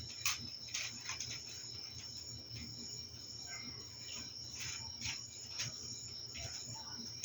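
A continuous high-pitched insect trill, typical of crickets, over the low steady hum of an electric fan, with scattered light clicks and rustles.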